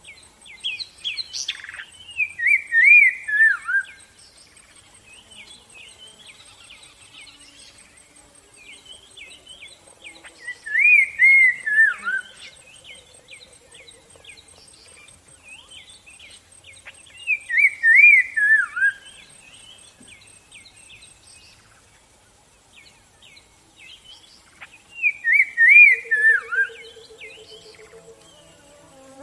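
Birds singing: one bird repeats a loud phrase of wavering notes stepping down in pitch four times, about every seven to eight seconds, over constant softer chirping and twittering from other birds. A faint steady high-pitched tone runs underneath.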